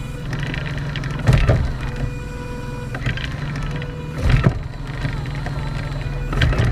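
Geared electric motor driving the steering column through a roller chain and sprocket, whining as it turns the wheel, with a louder clatter three times as it changes direction.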